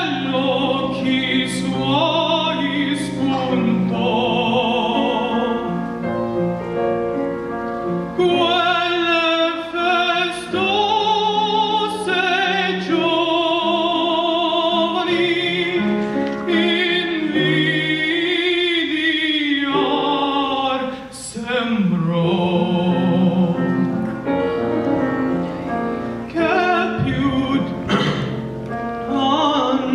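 A solo voice singing opera-style with a wide vibrato on held notes, over a steady instrumental accompaniment.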